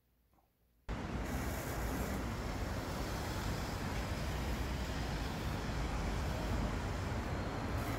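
Steady outdoor noise, a low rumble with hiss, typical of road traffic and wind on the microphone. It cuts in suddenly about a second in, after near silence.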